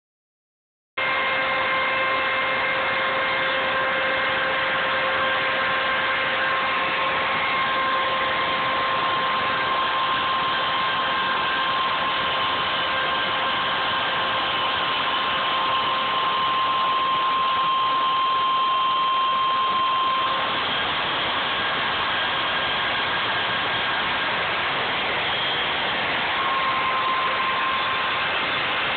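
Router motor of a computer-controlled CNC router running at high speed, its bit cutting a groove in a board. It makes a steady whine over a loud hiss, starting about a second in.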